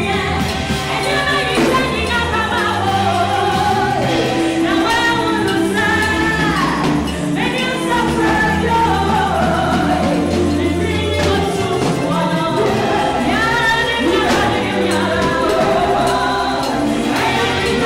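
Gospel music: voices singing together as a choir over instrumental accompaniment with a steady bass line.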